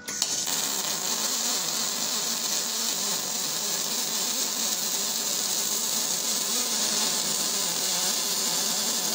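Aluminum MIG welding arc from an argon-shielded spool gun: a steady crackling hiss that strikes just after the start and runs on without a break.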